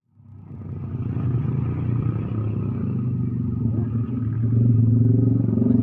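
Motorcycle engine running at steady revs, fading up from silence in the first second and growing louder about four and a half seconds in.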